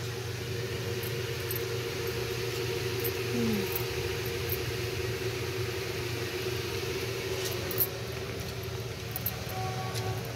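Steady background hum with a few faint, sharp clicks of clothes hangers shifting on a shop rail as garments are pushed aside. One louder click about three-quarters of the way through.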